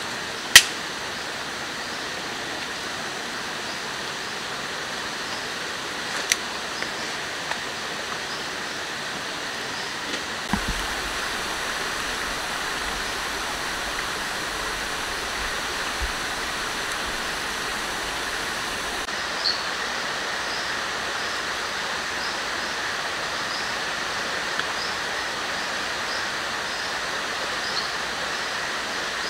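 Steady rushing of flowing river water, with one sharp crack about half a second in and a few fainter clicks later. Faint repeated chirps sound high above it in the last third.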